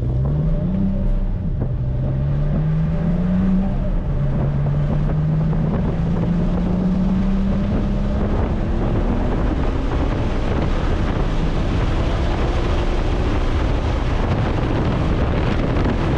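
Car engine at full throttle on an acceleration run. Its pitch climbs, drops at quick upshifts about two and four seconds in, then rises steadily through a long pull in a higher gear, while wind noise grows louder with speed.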